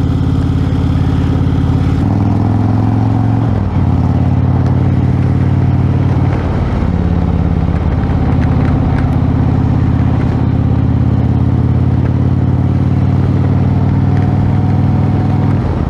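2018 Indian Chieftain's V-twin engine running under way at road speed, over a hiss of wind and road noise. Its note steps in pitch a few times in the first seven seconds, then holds steady.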